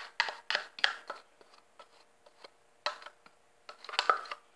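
A spoon scraping the last of a soft dessert out of a small plastic pot, in short scrapes: a quick run of them at first, then one about three seconds in and another near the end.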